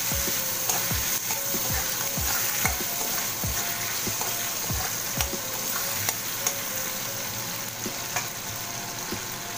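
Ginger paste and chopped tomatoes sizzling in hot oil in a steel kadai while a metal spatula stirs them in quick repeated strokes, about two to three a second, scraping the pan, with a few sharp clicks of the spatula on the metal. The paste is being fried so that its raw smell cooks off.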